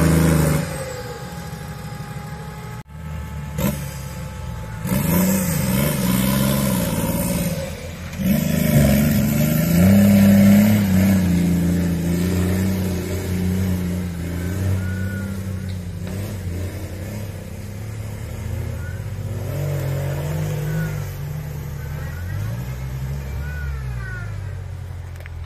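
Off-road competition vehicle's engine revving up and easing off again and again under load. It is loudest about ten seconds in, then settles into smaller rises and falls.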